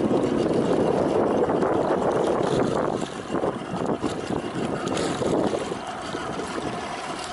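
Wind buffeting the microphone over water sloshing and splashing beside a boat's hull, where a hooked kingfish is thrashing at the surface. The wind is loudest for the first three seconds and then eases.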